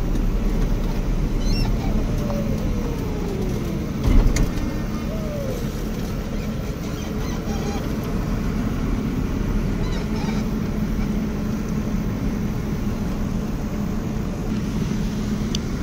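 Tractor engine running steadily under way, heard from inside the cab, with a single thump about four seconds in.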